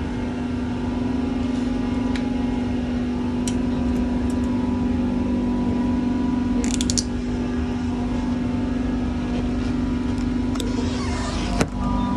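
Doha Metro train running between stations, heard from inside the car: a steady hum from the drive with a low rumble underneath, and a few light clicks and a short rattle. A couple of loud knocks near the end.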